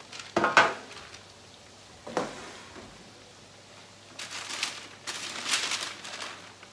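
A metal baking tray being handled, with a clatter about half a second in and a knock just after two seconds. Then sheets of non-stick baking paper rustle twice as they are spread and smoothed over the tray.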